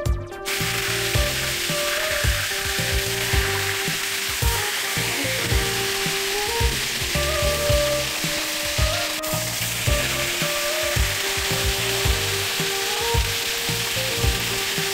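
Catfish pieces sizzling as they fry in hot oil in a pan; the sizzle starts about half a second in. Background music with a steady beat plays over it.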